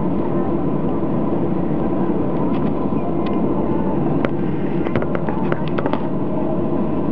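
Cabin noise of a Boeing 737-800 taxiing, its CFM56-7B engines at idle: a steady hum and low rumble. A cluster of small clicks or rattles comes about four to six seconds in.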